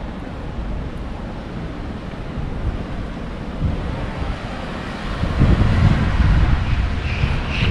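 Wind rumbling on the camera microphone over outdoor street noise and traffic, with a stronger gust about five seconds in; a few bird chirps start just before the end.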